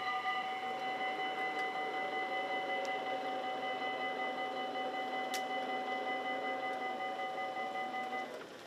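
Dutch level crossing warning bell ringing steadily as the barrier arms rise after a train has passed. It stops about eight seconds in, once the barriers are up.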